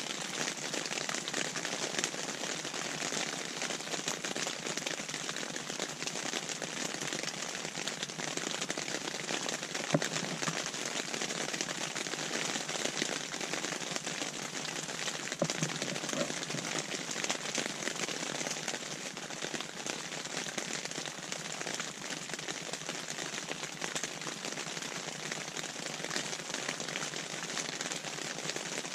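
Rain falling on a tent's fabric roof: a steady, dense hiss of drops, with a sharper tap about ten seconds in and another around fifteen seconds.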